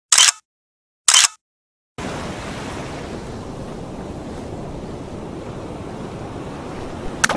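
Two short, sharp clicks about a second apart, then ocean surf: a steady rush of breaking waves from about two seconds in, cut off by a sudden loud splash at the very end.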